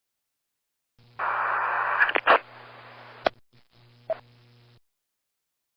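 Comlink radio static: a burst of loud hiss over a steady hum, then several sharp clicks over a quieter hiss that cuts off abruptly.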